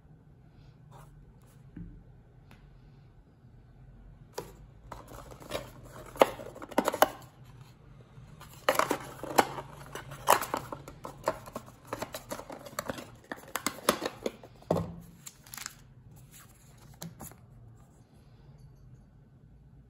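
Cardboard packaging being handled: a folded card box insert pulled open, its flaps flexed and scraped, giving a series of crisp rustles, scrapes and clicks that are busiest from about four to fifteen seconds in.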